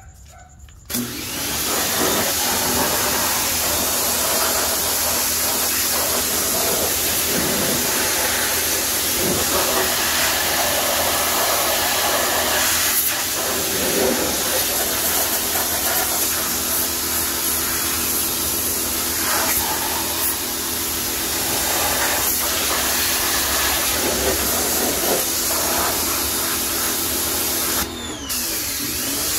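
Pressure washer spraying water onto a car wheel and tyre, rinsing off acid wheel cleaner after its second application; the spray and the machine's motor hum run steadily from about a second in, with a brief break near the end.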